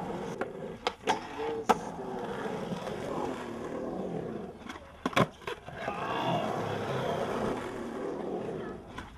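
Skateboard urethane wheels rolling on concrete, with sharp clacks of the board's tail and wheels hitting the ground: a few in the first two seconds and a loud one about five seconds in.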